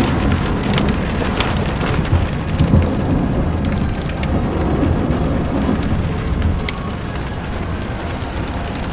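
Rain hitting a moving car's roof and windshield, with scattered sharp drop clicks over a steady low rumble of road noise heard from inside the car.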